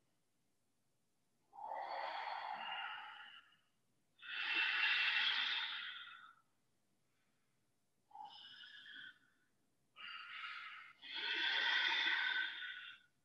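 Ujjayi breathing: about five slow, audible breaths drawn through a narrowed throat, each one to two seconds long.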